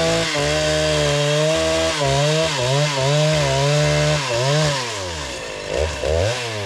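Petrol chainsaw running at high revs while cutting into a tree, its pitch wavering and dipping as the chain loads in the wood. A little past four seconds in the engine falls back toward idle, then is revved up twice briefly near the end.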